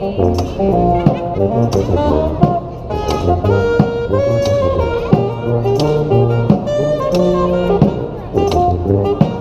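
Brass band playing a funky jazz groove: a sousaphone bass line under saxophone, trombone and trumpet, with sharp percussive hits keeping a steady beat.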